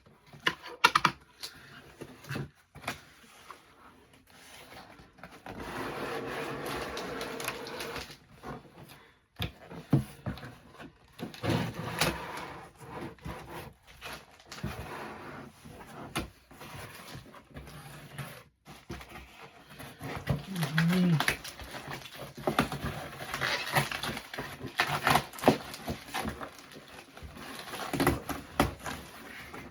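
Cardboard, tape and packing material of a mail package rustling, crinkling and crackling as it is handled and opened, with many small clicks.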